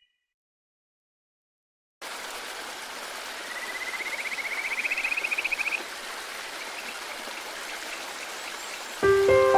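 Silence for about two seconds, then the steady rush of a mountain stream. A rapidly pulsed trill rises in pitch over it for a couple of seconds, and music notes come in near the end.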